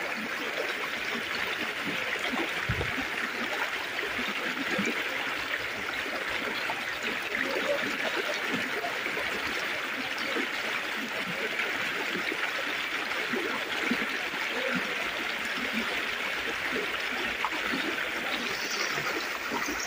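Floodwater flowing steadily and fast, an even rushing sound that does not let up.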